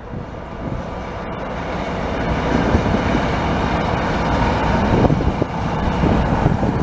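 ZSSK class 350 dual-system electric locomotive running light past at close range, growing steadily louder as it draws near. A faint steady whine runs under it.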